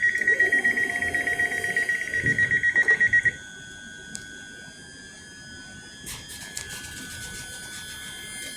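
Train door warning alarm sounding a rapid, high-pitched electronic beeping that cuts off suddenly about three seconds in, leaving a quieter steady background with a few faint clicks.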